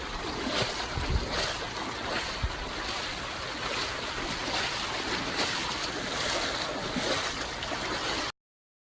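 Steady rushing of wind and water, with low gusty thumps on the microphone; it cuts off abruptly near the end.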